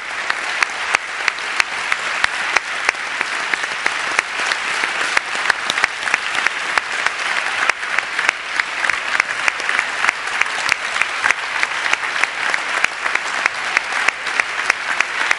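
Large theatre audience applauding steadily, a dense, sustained clapping.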